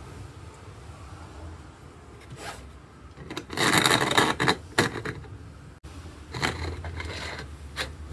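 Hand work on wood and stone: short scraping and rubbing sounds, with one louder scrape lasting about a second from about three and a half seconds in.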